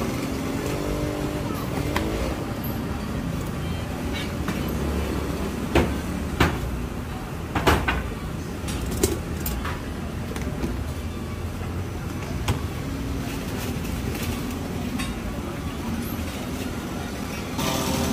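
Outdoor street-market ambience: a steady low rumble of road traffic with voices in the background. A few sharp clacks of serving tongs and plastic tubs are heard around the middle.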